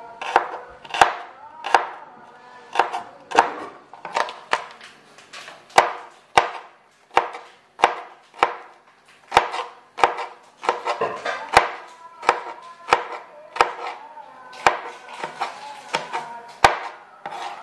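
Kitchen knife chopping shallots and garlic on a plastic cutting board: sharp, uneven chops, about one or two a second.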